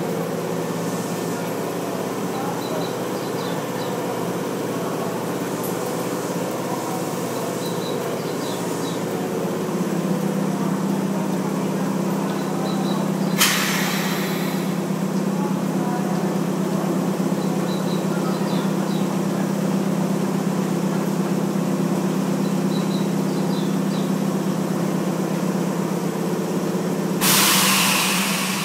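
Tokyu 8500 series electric train standing at the platform, its onboard equipment running with a steady hum that gets louder about ten seconds in. Compressed air hisses twice, typical of the air brakes: a short sharp burst about halfway and a longer one near the end.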